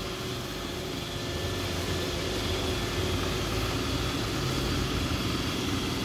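iRobot Roomba 900-series robot vacuum running as it drives across a tile floor toward its dock, a steady motor whir that grows a little louder after about a second.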